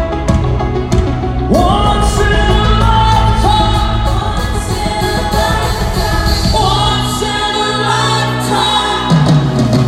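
Live rock band playing with a male lead singer holding long sung notes over a full, steady accompaniment, heard through the arena PA and recorded from the stands.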